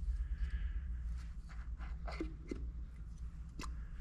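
Faint, scattered light clicks and taps of small metal transmission parts being handled as a retaining clip is worked off a 4L80E accumulator housing, over a low steady hum.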